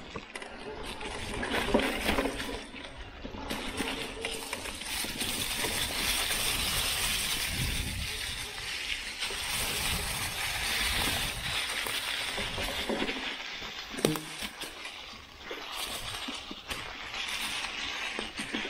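Mountain bike rolling down a trail covered in dry fallen leaves: a steady rustling crackle of the tyres through the leaves, with rattles and knocks from the bike over bumps and a sharp knock about 14 seconds in.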